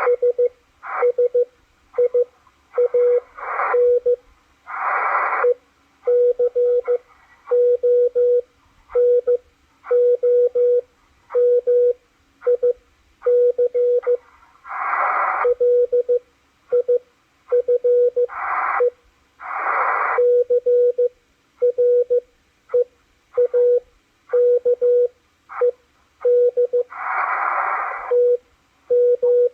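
Morse code (CW) from W1AW received on a Malachite DSP SDR receiver: a steady tone of about 500 Hz keyed on and off in short and long elements. Bursts of radio hiss come up in several of the longer gaps, about a second in, near the middle and near the end.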